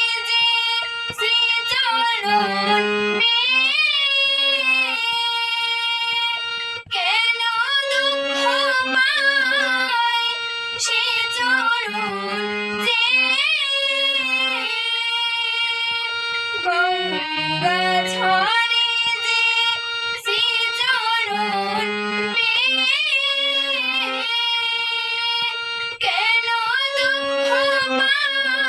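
A female voice singing a Bengali devotional song to Krishna (Gobinda), the melody bending and held over a steady drone accompaniment.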